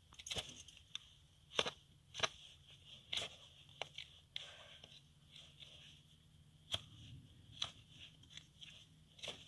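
Hoof knife paring the sole and frog of a horse's bare hoof, still hard horn: a string of short, crisp scraping cuts, about nine in all, with a pause of a second or so about halfway.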